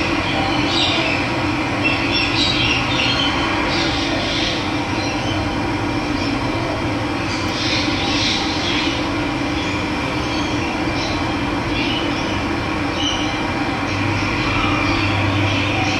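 Steady rush of running water, with bird calls breaking in now and then.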